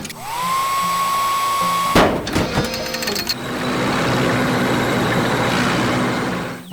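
Mechanical sound effects: a motor whine rises and holds one steady pitch, then a sharp clunk about two seconds in. Rattling clicks follow, then a steady whirring hiss like a power tool running.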